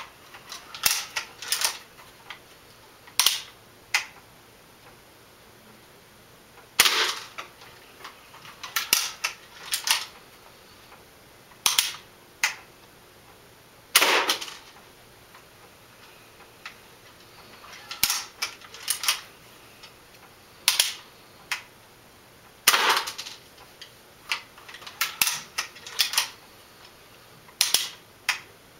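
Daisy Model 1894 lever-action BB gun being cocked and fired over and over. Sharp clacks and snaps come in short clusters every few seconds, about a dozen times.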